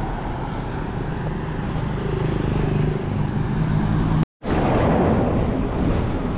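Road traffic passing close by: a vehicle's engine hum grows louder and fades over a few seconds. The sound drops out completely for a moment about four seconds in, then steady traffic noise resumes.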